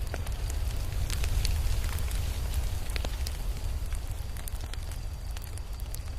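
Wood fire crackling, with irregular sharp pops and snaps over a steady low rumble of flames.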